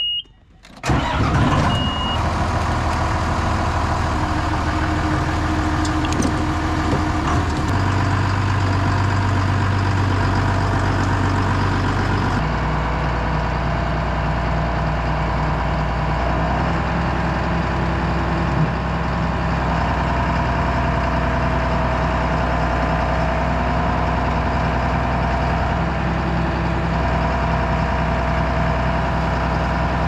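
John Deere 7405 tractor's diesel engine being started with the key: a short beep, the engine catches about a second in, then runs steadily, with a second beep soon after. The engine note shifts about twelve seconds in.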